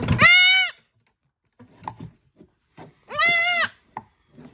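Goat kid screaming while her horn buds are burned with a disbudding iron: two loud, high bleats, one at the start and another about three seconds in.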